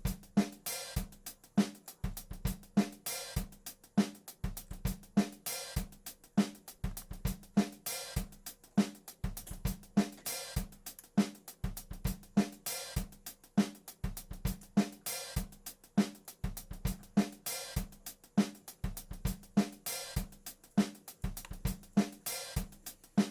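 Background music with a steady drum-kit beat: kick, snare and hi-hat/cymbal strokes repeating evenly.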